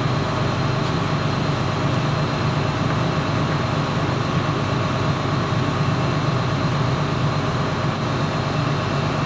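An engine running steadily aboard a boat, a constant low drone with a few faint steady tones above it.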